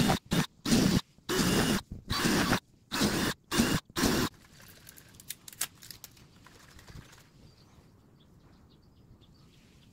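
Cordless drill run in a string of short bursts, about nine in four seconds, as it bores holes into the rim of a plastic cooler. After that only faint clicks remain.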